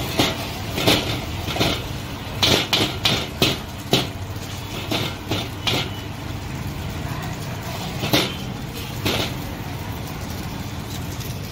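Repeated sharp, irregular clanks and knocks of metal cooking utensils, in a quick run of hits a few seconds in, then scattered single ones, over a steady low hum.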